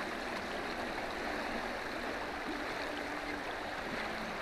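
Steady rushing of flowing river water around a small boat, with no distinct events.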